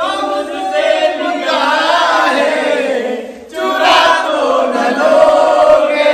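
A song with sung vocals: held, wavering melody lines with a brief break about three and a half seconds in.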